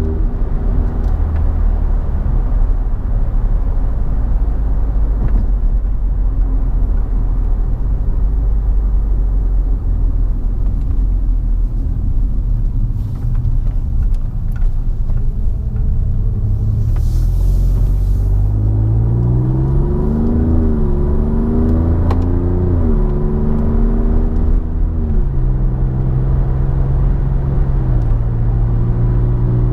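Alfa Romeo Giulia Quadrifoglio's twin-turbo V6 heard from inside the cabin while driving, its exhaust fitted with an X-pipe in place of the stock resonated mid pipe and its muffler valves held open by unplugged vacuum lines. A steady low drone at first; from about two-thirds of the way in, the engine pulls harder, its pitch rising and dropping through several quick gear changes, then holds steady at a higher pitch.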